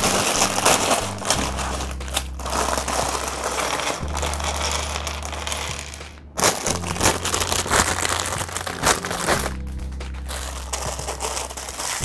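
Clear plastic parts bag crinkling in bouts as it is handled and emptied of LEGO pieces, with a short break about six seconds in. Background music with a steady low bass plays underneath.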